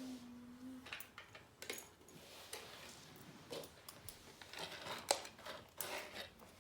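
Small plastic Lego bricks clicking and rattling as pieces are picked through and handled, scattered light clicks. A cat's meow falls away and ends within the first second.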